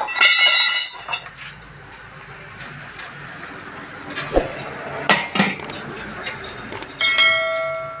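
Steel wheel rim of a tractor-trolley tyre ringing like a bell when struck: a loud clang just after the start that rings for about a second, a few sharp knocks in the middle, and a second clang near the end with a longer, steady ring.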